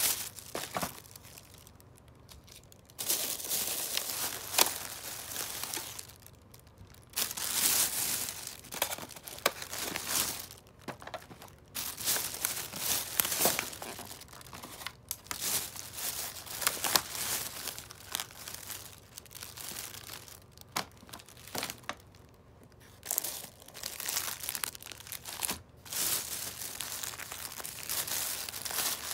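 Thin plastic shopping bags and food packaging crinkling and rustling as a hand rummages through wrapped rice balls and plastic food trays, in bouts of a few seconds with short pauses between.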